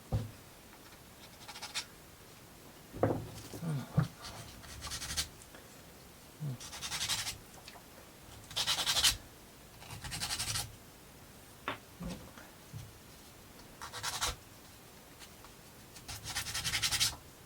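Scratchy rubbing strokes on thin wooden kit parts, about eight of them, each half a second to a second long, among a few light clicks and taps of the pieces being handled.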